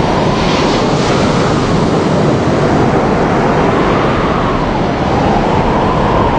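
Loud rushing floodwater: a steady wash of surging water rising and falling in slow swells.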